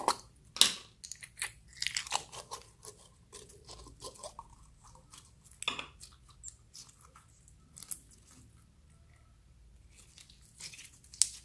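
Clear green slime with beads in it being worked out of its plastic cup and squeezed by hand: irregular sticky crackles, pops and squishes, with a sharp snap about half a second in and another near the end.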